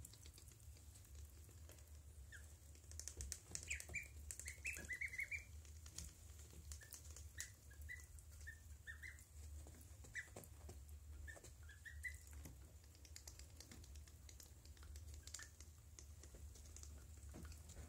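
Ducklings peeping softly: scattered short rising peeps, a quick run of them a few seconds in and more here and there after, with small clicks from the birds moving and preening. A low steady hum sits underneath.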